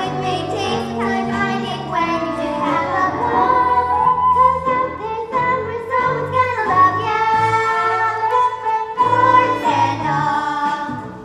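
Young children singing a musical-theatre number together over an instrumental accompaniment.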